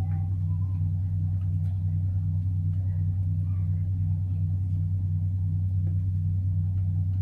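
A motor running with a steady low drone that pulses evenly a few times a second. Faint light taps sound over it.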